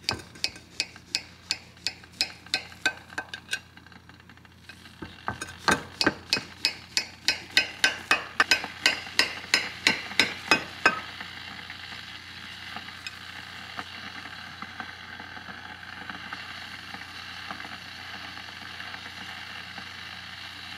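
A serrated knife sawing through the crust of a baked cornbread in a round baking pan, with sharp rhythmic clicks at each stroke, about two to three a second. After a short pause the strokes come back louder and a little faster. About eleven seconds in they stop and a steady hiss takes over.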